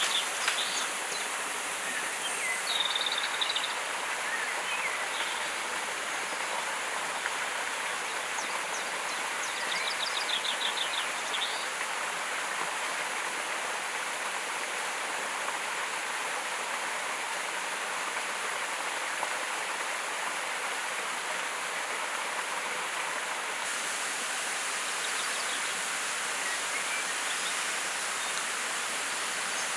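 Steady rush of flowing river water, with a few short trilled chirps in the first dozen seconds.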